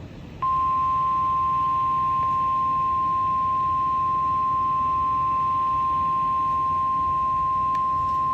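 NOAA Weather Radio 1050 Hz warning alarm tone: a single loud, steady beep that starts about half a second in and holds unbroken, over faint radio hiss. It is the signal that a weather warning broadcast follows, here a severe thunderstorm warning.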